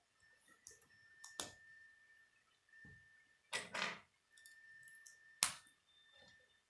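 Plastic K'nex rods, connectors and gears clicking and snapping together as they are fitted by hand: a few sharp clicks and a short rattle, the loudest click about five seconds in.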